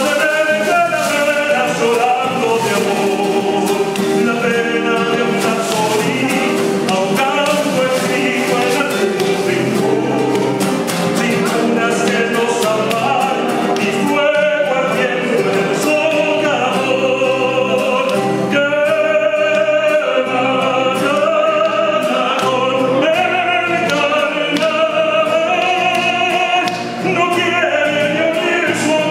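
A man singing a zamba, an Argentine folk song, accompanying himself by strumming an acoustic guitar.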